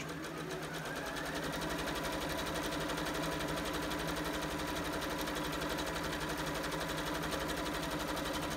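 Janome New Home drop-in-bobbin sewing machine stitching a test seam. It picks up speed over the first second or so, then runs at an even rate. The seam is a check of bobbin tension after the bobbin case's tension screw was turned half a turn.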